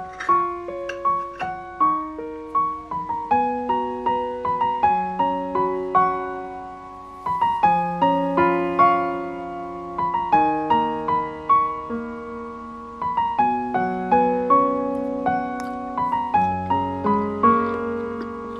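Background piano music: a melody of struck notes that ring and fade, with a brief lull about seven seconds in.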